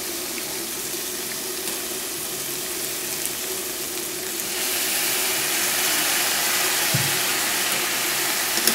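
Shallots, garlic and chicken intestines sizzling in a hot stainless steel frying pan. About halfway through, the sizzle jumps louder and hissier as a sauce is squirted in from a red-capped bottle and steam rises. A short tap comes near the end.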